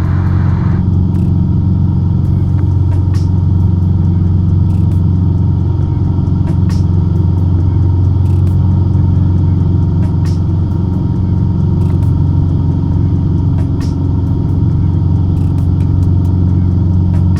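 Cessna 150's four-cylinder engine and propeller droning steadily in cruise flight, heard from inside the cockpit.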